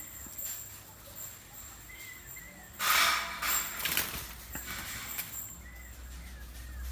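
Faint bird calls warbling in the background, broken about three seconds in by a loud, noisy burst lasting about a second, followed by weaker ones.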